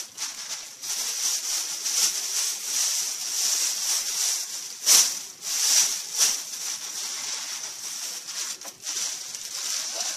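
Plastic packaging rustling and crinkling as items are unpacked, with louder crinkles about five and six seconds in.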